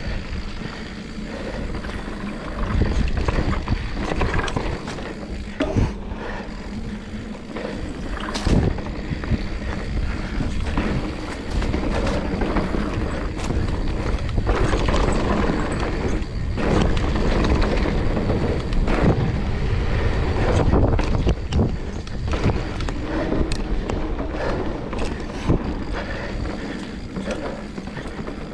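Mountain bike riding over a dirt singletrack: a steady rumble and rush with many sharp knocks and rattles from the bike going over roots and bumps.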